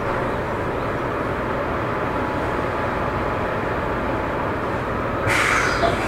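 Seibu 9000 series electric train running along the line, a steady rumble and rail noise. About five seconds in a sudden, louder hiss starts over it.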